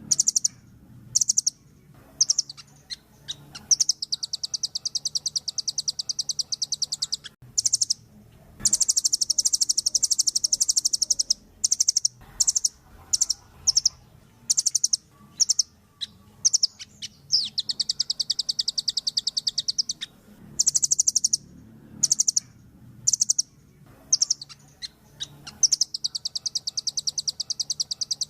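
Velvet-fronted nuthatch giving high-pitched rapid trills: long rattling runs of quick repeated notes, each lasting two to three seconds, alternating with short bursts of a few notes.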